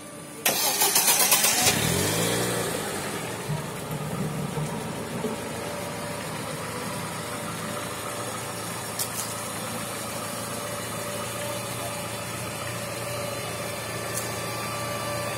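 Lada Niva VAZ-2131's four-cylinder petrol engine being started: the starter cranks for about a second from about half a second in, then the engine catches, rising briefly in pitch before settling into a steady idle.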